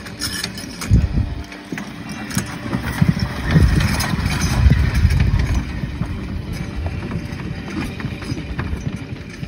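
Two-horse driving carriage passing close: the wheels rumble and rattle over turf along with the horses' hooves, loudest about four to five seconds in, with a sharp knock about a second in.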